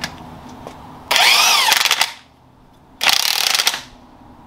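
Power impact wrench run in two bursts, the first about a second long and the second a little shorter, its whine rising and falling as it drives a nut down onto a strut's top-mount bushing.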